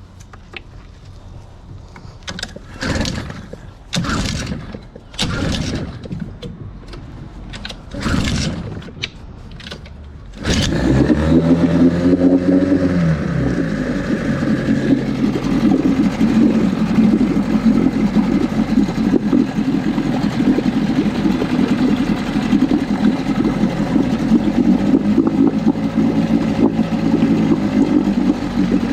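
Mercury 7.5 outboard motor being pull-started: several short cranking pulls, then on the last one, about a third of the way in, the engine catches, revs briefly and settles into a steady idle.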